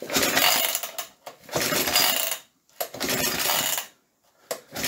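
Vintage Suffolk small engine's recoil pull starter yanked four times in a row, each pull about a second of whirring and clattering as the engine turns over without firing. It does not start because there is no spark at the plug.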